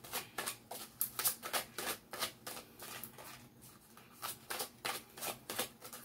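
A deck of oracle cards being shuffled by hand: a quick run of short papery slaps, about three or four a second, easing off briefly around the middle.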